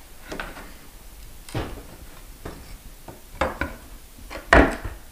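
A pry bar working a wooden stair tread loose: about half a dozen irregular wooden knocks and clacks as the bar is set and levered against the tread. The loudest sharp knock comes near the end.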